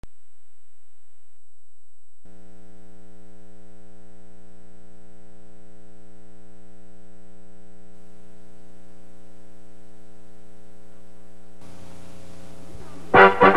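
Steady electrical buzzing hum with many overtones on a VHS tape's soundtrack as playback starts, joined by tape hiss as the picture comes up. Loud brass music starts abruptly near the end.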